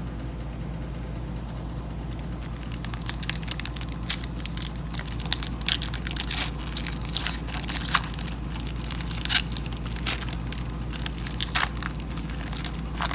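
Foil trading-card pack wrapper being torn open by hand and crinkled, an irregular run of crackles starting a couple of seconds in, over a steady low hum.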